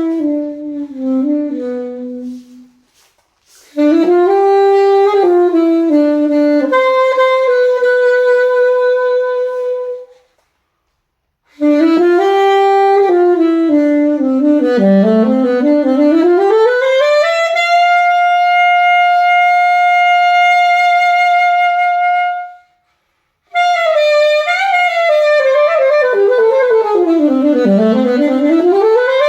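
Alto saxophone playing a slow solo line in phrases broken by short silences. It slides down in pitch and back up, then holds one long steady note for about five seconds, and near the end slides down and up again.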